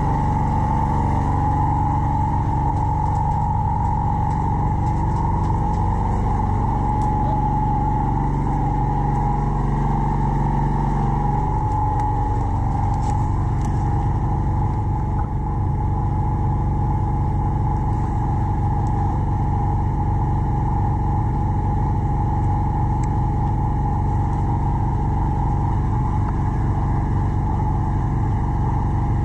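A steady motor drone with a constant hum that holds the same pitch throughout, and a few faint sharp clicks.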